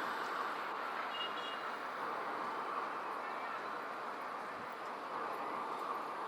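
Steady street ambience: a continuous wash of traffic noise with indistinct voices mixed in.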